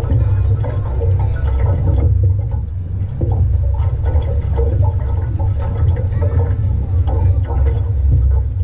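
River water rushing and lapping against a drift boat's hull, over a heavy, steady low rumble.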